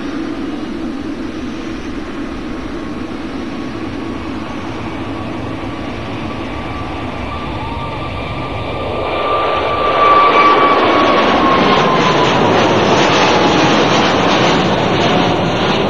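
Boeing 777 Freighter's twin GE90 turbofans at takeoff power as the jet climbs out after liftoff. The jet noise grows louder about two-thirds of the way through. A high engine whine then falls in pitch over the last few seconds.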